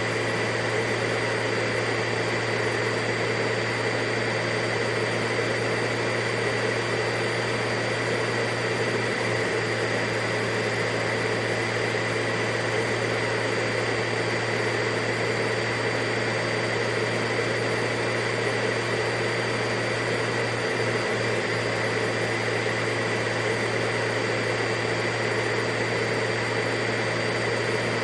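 Vacuum cleaner running steadily, a constant motor whine over a low hum, with no change in pitch or level.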